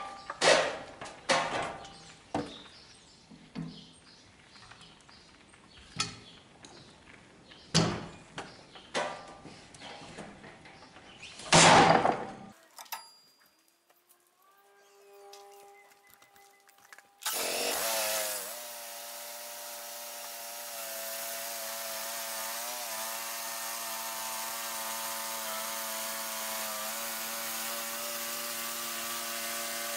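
Knocks and clunks of a cant hook and a heavy log being levered on a portable sawmill's steel bed. About 17 seconds in, the sawmill's Kohler gas engine cranks and starts, then settles into steady running.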